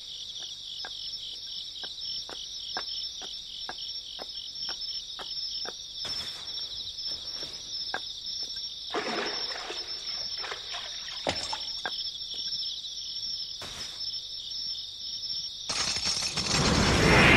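Crickets chirring steadily through a night scene, with light footsteps ticking about two to three times a second for the first six seconds. Near the end there is a loud rush of noise as something goes down the well into the water.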